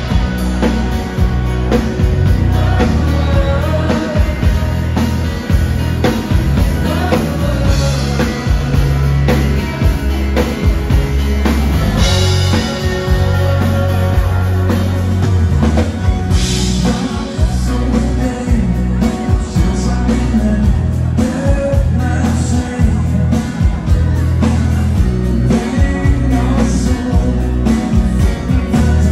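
Live dansband playing: vocals over electric guitars, keyboards, bass and drum kit, with a steady dance beat.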